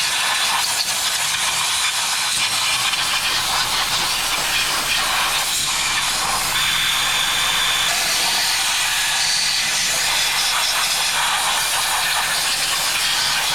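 A loud, steady hiss with no rhythm, with a brief faint high tone about halfway through.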